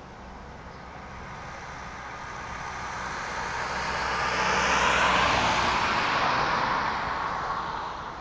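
Turbocharged VW Vento with a swapped-in R32 VR6 engine driving past: it grows louder, is loudest about five seconds in, and fades away as it passes.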